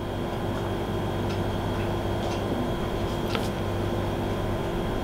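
Steady low hum and hiss of room tone, with a faint high whine and a few soft ticks about a second apart.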